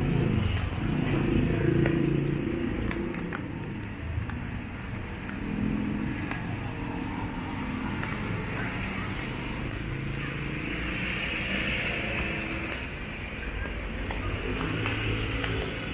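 Busy road traffic: car and motorcycle engines running and passing, with a steady hiss of tyres that swells as a vehicle goes by.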